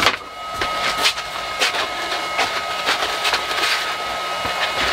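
Sanding belts handled and shuffled by hand, with repeated rustling and clacking strokes. Under them a steady high whine and low hum, as of a machine left running.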